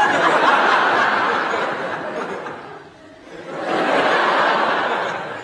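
Studio audience laughing in two waves: the first breaks out suddenly and dies away after about three seconds, then a second swell of laughter rises and fades.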